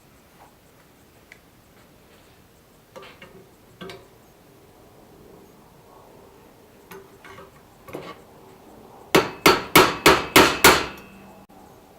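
Hammer striking steel: a few light taps, then a quick run of seven hard blows, about four a second, near the end.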